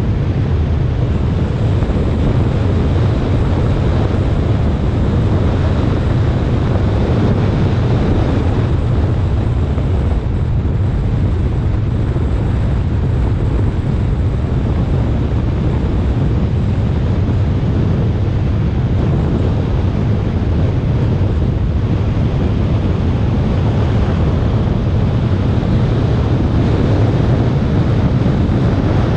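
Steady rush of wind buffeting a camera mounted on the front of a Lamborghini Huracán at track speed, with the car's road and tyre noise underneath.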